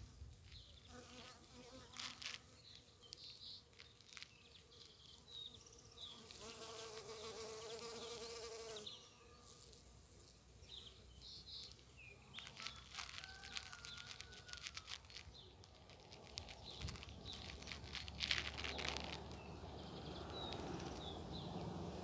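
A bee buzzing in flight near the microphone. The buzz is loudest for about three seconds from about six seconds in and cuts off suddenly, with briefer, fainter passes later.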